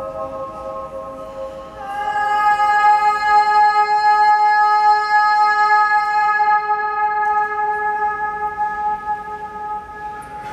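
Sung notes held and left ringing in the long echo of a domed marble baptistery, so they overlap into a lingering chord. A new note starts about two seconds in and slowly fades away.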